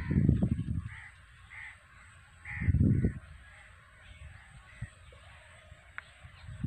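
Crows cawing repeatedly in short calls. Two loud low rumbles on the microphone, at the start and about three seconds in, stand out above the calls.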